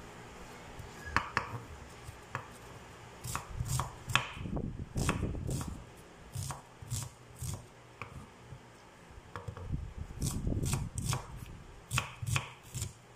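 Chef's knife slicing a red onion into thin rings on a wooden cutting board: a run of short knocks of the blade meeting the board, in two spells with a quieter gap between them.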